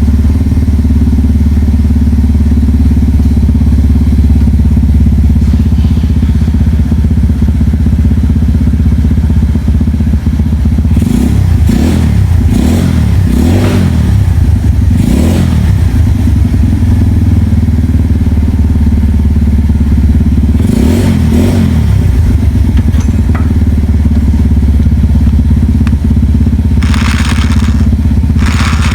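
Electric power tool fitted with a tungsten carbide cutter, running with a steady hum while shaping wood; its pitch dips a few times as the cutter bites under load, and a brighter grinding hiss rises near the end.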